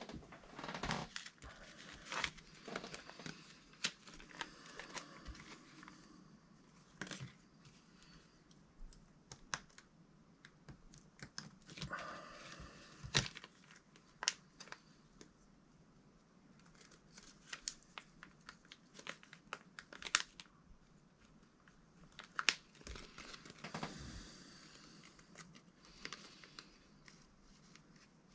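Hands fitting small parts of an RC car's central differential: irregular clicks, taps and short rustles as the parts are worked together.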